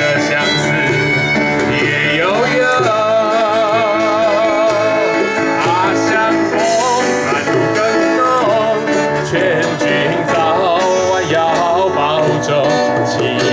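Background music: a song with plucked-string accompaniment and a wavering melody line that enters about two and a half seconds in.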